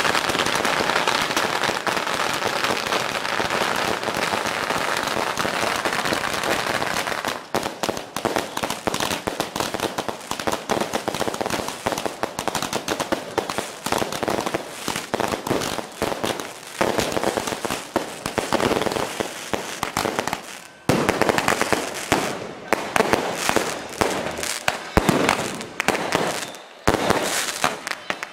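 Strings of red firecrackers going off on the street: a dense, unbroken crackle for the first several seconds, then thinning into many separate, irregular bangs.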